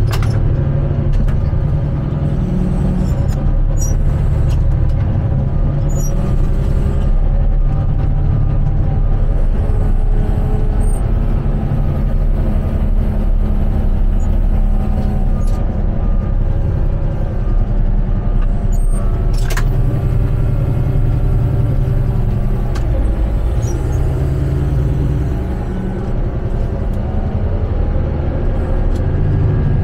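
Motor grader's diesel engine running steadily, a loud low rumble, with a couple of sharp clicks, one near the start and one about two-thirds of the way through.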